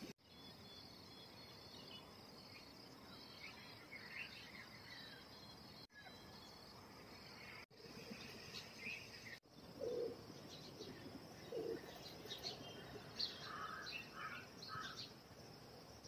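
Birds chirping and calling in short, scattered notes over a faint, steady background hiss of outdoor ambience. The sound drops out briefly three times.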